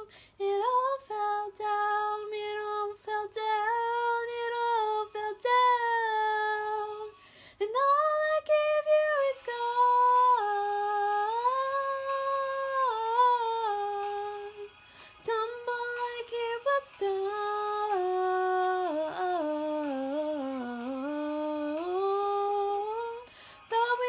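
A young woman singing unaccompanied, holding long notes and gliding slowly between pitches, with a few short breaths between phrases.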